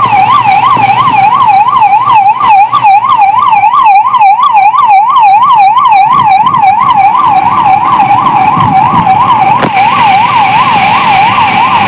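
Ambulance siren in fast yelp mode: a loud up-and-down wail repeating about three times a second as the ambulance drives off.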